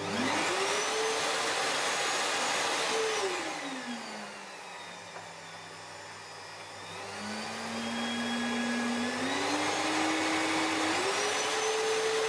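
Samsung SC4181 vacuum cleaner motor switched on and spinning up to full speed, then turned down to low on its speed regulator about three seconds in and brought back up to full in several steps. The motor answers each setting of the regulator, showing the regulator works after the repair.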